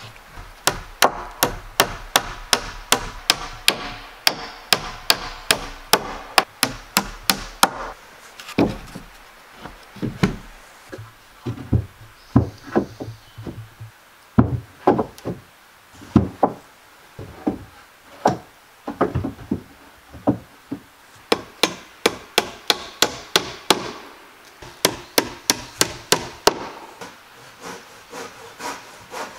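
Hammer driving nails into wooden boards: runs of quick, sharp strikes, about three a second, broken by short pauses and sparser blows.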